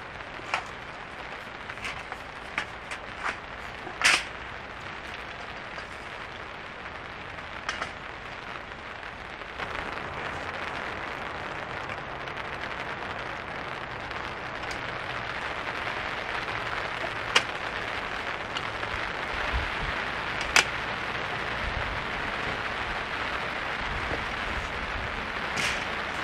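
Sharp metal clicks and clacks as the tubular legs of a folding steel-mesh camp table are handled and fitted into its frame, the loudest about four seconds in. A steady hiss of rain sets in about ten seconds in and grows.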